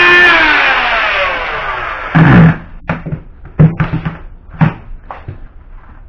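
Hyper Tough 2.1-amp oscillating multi-tool, set at max speed, with a high steady whine that is switched off about a quarter second in. Its pitch then falls over about two seconds as the motor spins down. After that come a handful of sharp knocks and clunks, the loudest about two seconds in.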